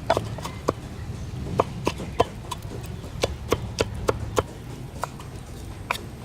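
Knife chopping on a wooden cutting board: a series of irregular sharp knocks with short pauses between them.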